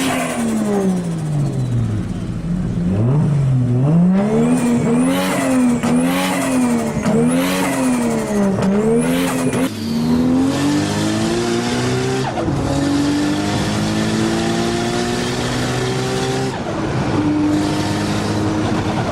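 Turbocharged car engine blipped repeatedly, about once a second, with a high turbo whistle at each peak and fluttering as the throttle is lifted. It then pulls hard under acceleration, its pitch climbing steadily with gear changes about twelve and sixteen seconds in.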